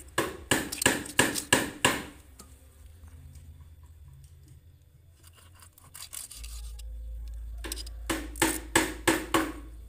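A kitchen knife scraping scales off a snakehead fish in a quick run of about six strokes. Near the end, the blade is drawn back and forth over a wet whetstone in a similar run of strokes as the knife is sharpened.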